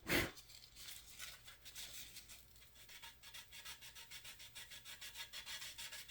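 Hand sanding of dried putty on a plastic scale-model car body: quick, even back-and-forth scraping strokes. There is a single sharp knock just after the start.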